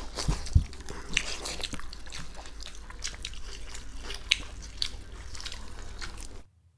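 Close-miked eating sounds: chewing and wet mouth clicks, with fingers squishing water-soaked panta bhat rice, as scattered small wet ticks over a low steady hum. The sound cuts off suddenly just before the end.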